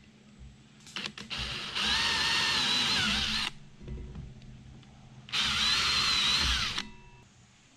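Cordless drill driving screws into a boat's deck: two runs of steady motor whine, the first about two seconds long and the second about a second and a half, each dipping in pitch near its end. The screws are fastening down the base of a deck cable seal.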